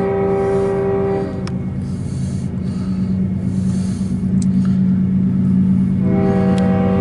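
CSX diesel freight locomotive sounding its multi-tone air horn for a grade crossing: one blast cuts off about a second in and another starts near the end. Between them the locomotive's engine drones steadily, working at full power as the loaded coal train approaches.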